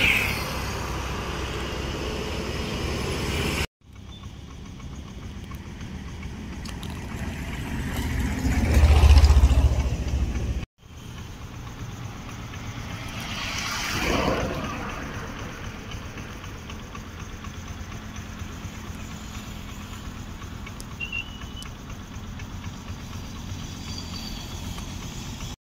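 Road traffic: vehicles passing close by. One passes with a deep rumble, loudest about nine seconds in, and a fainter one passes a few seconds later. The sound breaks off abruptly twice.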